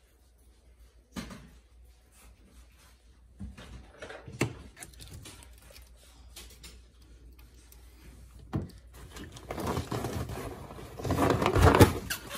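Handling noise at a boat's centre console: a few separate knocks, then rubbing and rustling that grows louder near the end as a padded cushion is pulled out of the compartment under the console.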